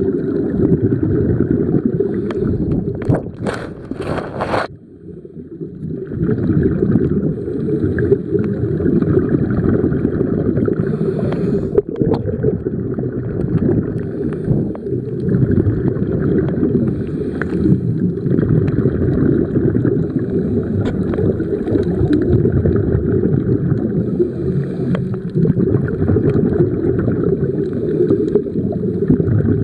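Muffled underwater rumble of moving water heard through a waterproof camera housing. A few sharp clicks come about three to four seconds in, followed by a short quieter spell.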